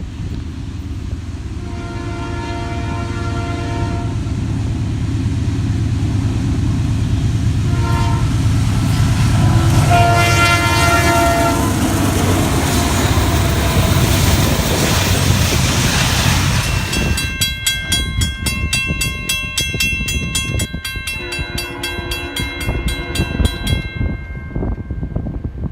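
A railroad locomotive's multi-chime air horn sounds several blasts over the rumble and rail clatter of a passing train. The rumble grows louder to a peak about ten seconds in, and the last horn sound, near the end, is longer and higher.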